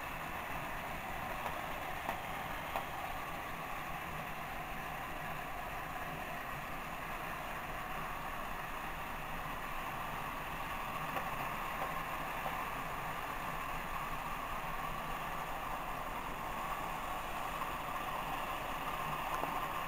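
Several battery-powered Trackmaster toy train engines running together: a steady whirring of their small motors and gears, with occasional light clicks.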